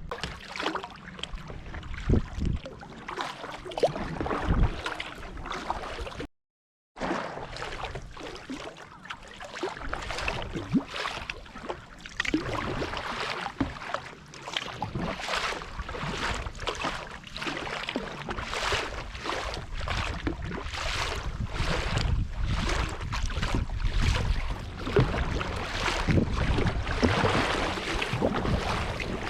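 Kayak paddle strokes, the blades dipping and pulling through the water in a steady rhythm of one to two strokes a second. Wind rumbles on the microphone and grows stronger towards the end. The sound cuts out completely for a moment about six seconds in.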